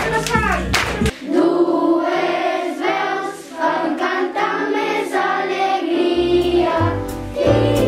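Background song with a group of voices singing long held notes together; the low accompaniment drops out about a second in and comes back near the end.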